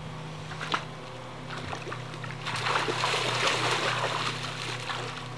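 Pool water splashing and sloshing as a child ducks under and swims, the splashing growing louder about two and a half seconds in, over a steady low hum.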